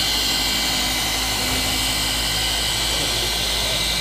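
Rupes random-orbital polisher running steadily with a constant whine, its foam pad buffing the car's clear coat to correct swirls and scratches.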